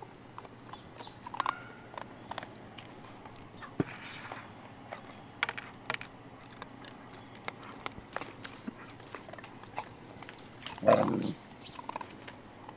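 Steady high-pitched chirring of crickets, with scattered small clicks and scuffs from puppies moving at a wire fence. About eleven seconds in, a puppy gives one short, loud cry.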